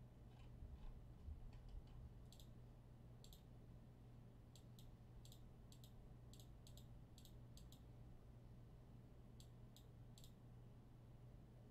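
Near silence over a low steady hum, broken by a scattering of faint, sharp clicks at irregular intervals, some in quick pairs, most of them in the middle stretch.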